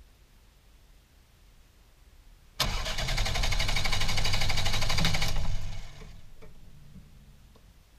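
Ford Fiesta's 1.3-litre Endura-E four-cylinder engine being started: about two and a half seconds in, a sudden loud cranking and firing with fast, even pulses lasts about three seconds, then drops to a much quieter low running sound.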